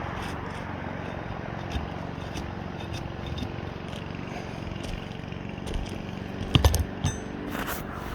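Crackling and scraping of asphalt shingles being worked loose to unseal them, with a cluster of louder sharp cracks near the end, over a steady low background rumble.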